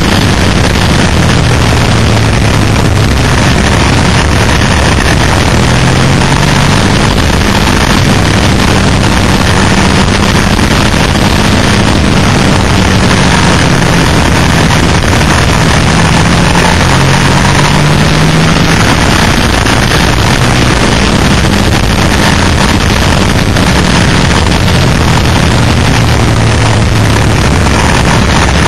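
Onboard sound of a Suzuki SV650's 645 cc V-twin engine at track speed, its note rising and falling with the throttle and gear changes, under loud wind rushing over the camera microphone.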